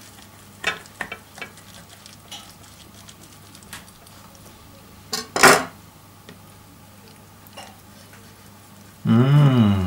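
Kitchen knife cutting through a very tender slow-braised beef neck on a metal platter: faint scrapes and taps of the blade, with one louder clatter of the knife on the platter about five seconds in. A man's voice sounds briefly near the end.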